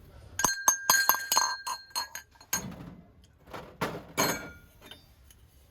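Brass kitchen utensils clinking and knocking together as they are handled, with a clear metallic ring. A quick run of clinks comes about half a second in, and a few more knocks follow later on.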